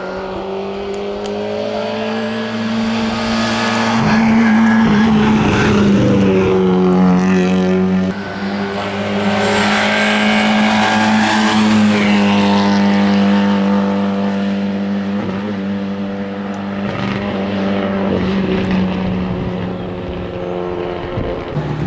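Rally car engine running hard, revving up and changing gear several times as the car drives past on the stage, loudest in the middle.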